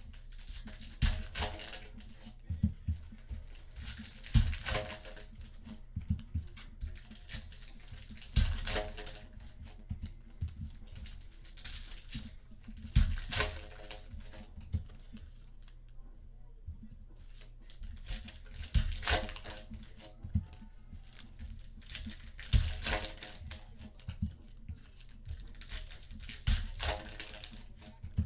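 Trading-card packs being torn open and their wrappers crinkled, with cards handled between the rustles that come at irregular intervals.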